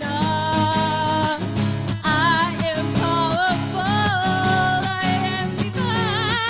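A woman singing long held notes with vibrato over a steadily strummed acoustic guitar.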